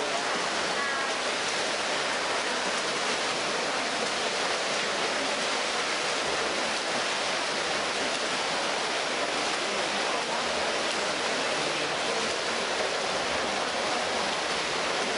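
Steady wash of water splashing from swimmers racing in an indoor pool, blended with the echoing din of the pool hall.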